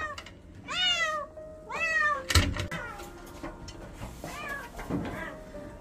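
A cat meowing over and over, about five calls, the first three loudest, with a single thump about two seconds in. The cat is fussing and unsettled at being kept in a hospital cage.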